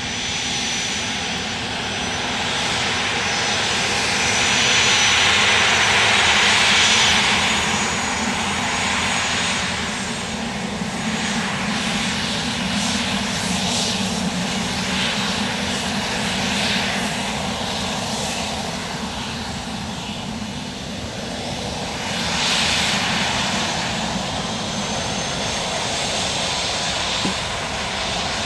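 Dassault Falcon three-engine business jet taxiing past, its engines giving a steady jet whine and hiss over a low hum. The hiss swells a few seconds in and again later as the jet turns away.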